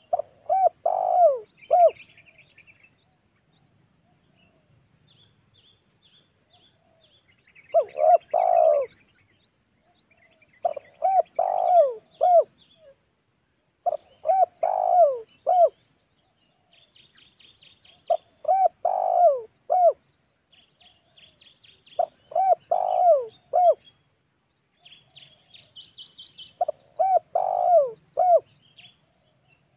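Spotted dove (tekukur) cooing: about seven phrases of three or four arching coos, several seconds apart. Small birds chirp faintly and high in the gaps.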